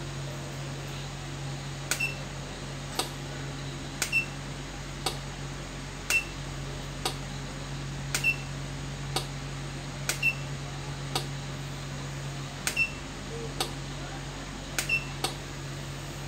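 Sharp clicks about once a second, several of them doubled, most followed by a short high beep, over a steady low electrical hum.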